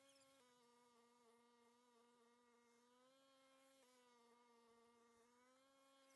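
Faint buzzing drone of a snowblower's small engine. Its pitch drops suddenly twice, as if bogging under load, and climbs back each time.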